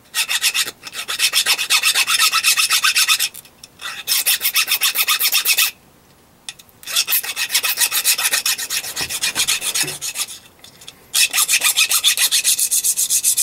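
A small turned metal part is rubbed back and forth across a flat hand file to take off the thin burr left by parting it off on the lathe. It makes a quick scraping rasp of about five strokes a second, in four runs with short pauses between them.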